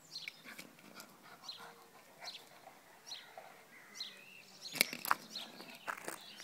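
A miniature schnauzer mouths and noses at a coconut on a rough path, making scattered short scrapes and clicks of teeth and husk. The loudest come about five seconds in.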